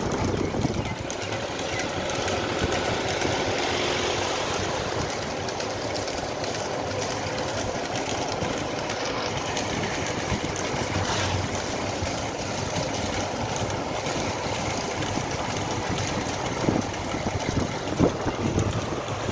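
A motor vehicle's engine running steadily, with a few sharp knocks near the end.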